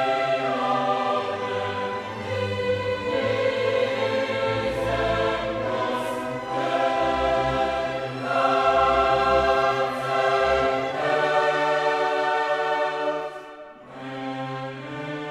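Background music: a choir singing in a classical style over orchestra, held chords changing every second or so, with a brief dip near the end.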